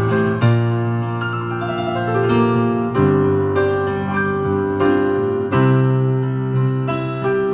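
Piano played slowly, sustained chords with a new chord struck about every two and a half seconds and a higher melody above them.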